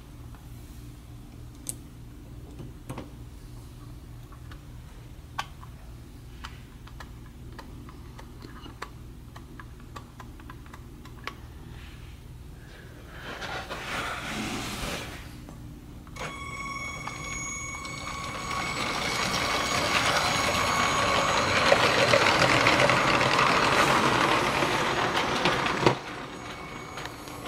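Motorised LEGO train running on plastic track: a steady low motor hum with irregular clicks as the wheels pass rail joints. About two thirds of the way in, steady high ringing tones join, and a much louder rushing noise builds up and then cuts off suddenly near the end.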